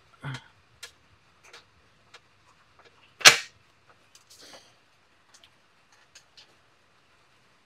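Jack being put back together by hand: scattered light clicks and knocks of metal parts, with one sharp clank a little past three seconds in.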